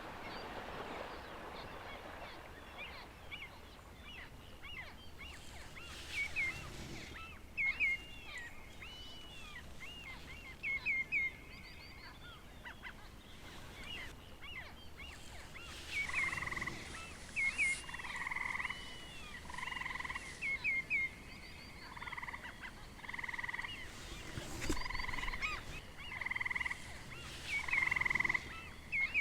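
Frogs calling in chorus: many short, high chirping notes throughout, joined about halfway in by loud croaks repeating roughly once a second.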